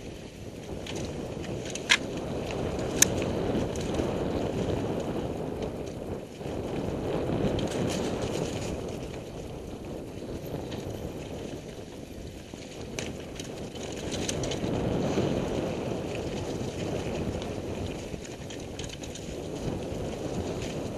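Mountain bike riding on singletrack, heard from a helmet-mounted camera: a steady rushing noise of tyres rolling on dirt and wind on the microphone, with two sharp clicks from the bike about two and three seconds in.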